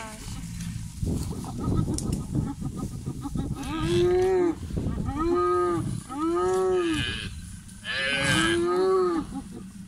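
African buffalo calf bawling in distress: about four drawn-out calls from about a third of the way in, each rising then falling in pitch. A low rumbling noise runs underneath, and it is all there is before the calls begin.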